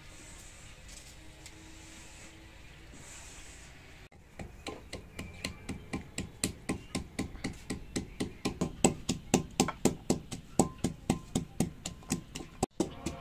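Wooden pestle pounding garlic cloves in a clay mortar: a quick, steady run of knocks that starts about four seconds in, after a short stretch of soft background.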